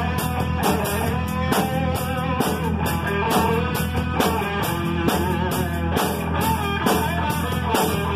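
Live rock band playing: a lead electric guitar line over bass guitar and a drum kit keeping a steady beat.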